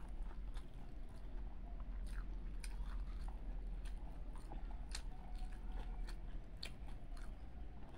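Close-up eating sounds: chewing a mouthful of rice with scattered short wet mouth clicks and smacks, and fingers mixing rice with dal on a metal plate, over a steady low hum.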